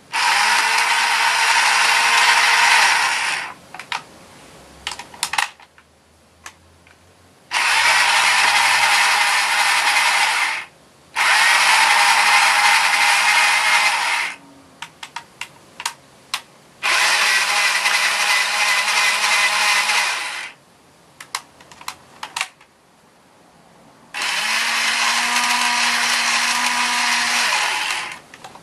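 Small battery-powered toy motor and gears of the DX Stinger Drill combined with the Stinger Blade, spinning the drill cone with a whirring buzz and a steady hum, run five times for about three seconds each. Short clicks and handling noise fill the gaps between runs.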